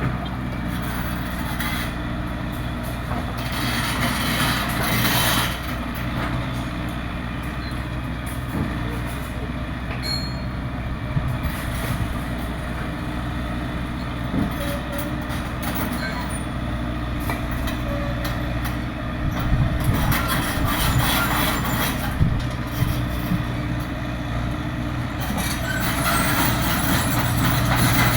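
Excavator's diesel engine running steadily, with occasional knocks and clanks, getting louder near the end.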